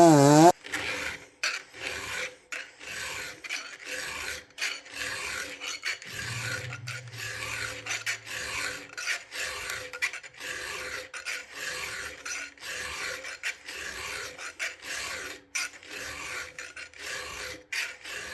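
A chainsaw running at high revs cuts off abruptly about half a second in. Then comes a chainsaw file rasping in repeated strokes across the chain's cutters as the chain is sharpened by hand.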